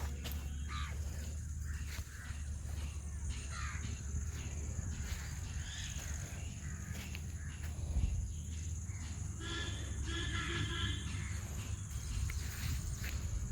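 Birds calling now and then, loudest a little after halfway, over a low steady hum.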